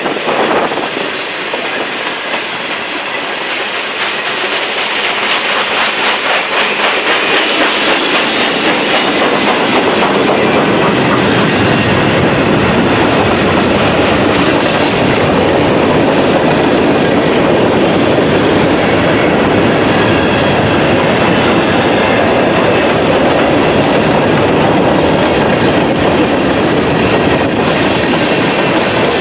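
Cars of a mixed freight train (boxcars, covered hoppers and tank cars) rolling past, their steel wheels clicking over the rail joints in a continuous clickety-clack. The sound grows louder over the first several seconds, then holds steady.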